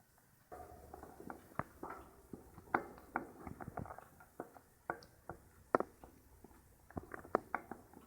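Pet fancy rats moving about, scratching and rustling, with a run of small, irregular clicks and scuffles.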